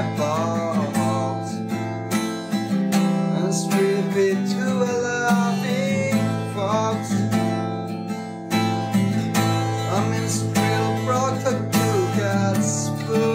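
Höfner acoustic guitar played steadily through a chord progression, the chords ringing on, with a man's voice singing along at times in wavering phrases.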